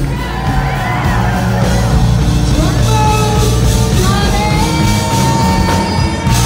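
Live rock band playing loud, amplified electric guitar, bass and drums, with held guitar notes and shouts and whoops over the music.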